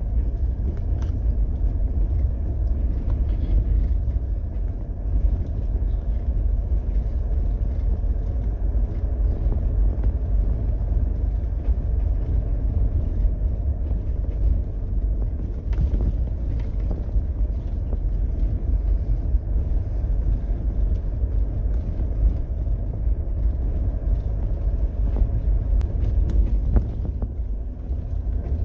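Mahindra Thar driving over packed snow and slush, heard from inside the cabin: a steady low rumble of engine and tyres, with an occasional faint knock.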